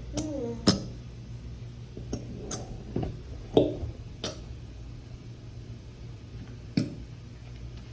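Thick Elmer's glue being squeezed and poured from its bottle into a container, with a short squeaky squelch at the start. About half a dozen sharp, irregular clinks and taps against the container follow.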